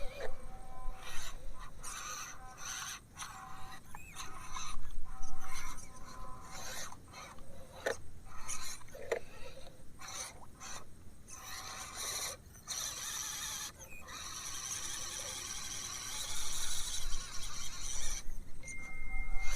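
Small electric motors and gearboxes of scale RC off-road trucks whining in stop-start bursts as they crawl, with scraping and rasping from the tyres and chassis on the ground.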